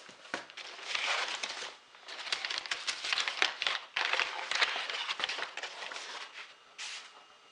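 Cardboard box and packaging rustling and crinkling as a box is unpacked and moved aside. The crackling comes in spurts with many small clicks and scrapes, pausing briefly about two seconds in and again near the end.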